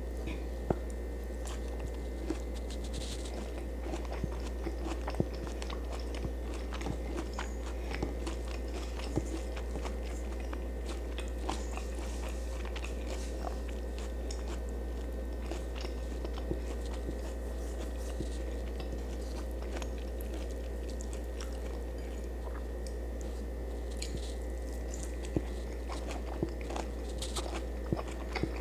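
A person chewing and biting food close to the microphone: many small wet clicks and light crunches scattered throughout, over a steady low hum.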